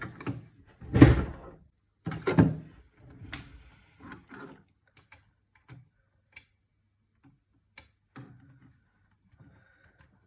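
Knocks and clunks of computer parts being handled as a SATA cable connector is pushed at a hard drive the wrong way round: a loud thump about a second in, another a second and a half later, then scattered small clicks.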